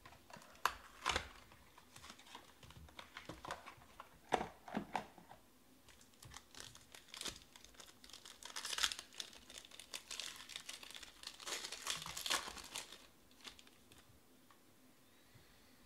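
Sharp clicks and taps of cards and cardboard box being handled for the first few seconds. Then, from about eight seconds in, a 2019-20 Panini Obsidian basketball card pack's wrapper crinkles and tears for several seconds as it is opened.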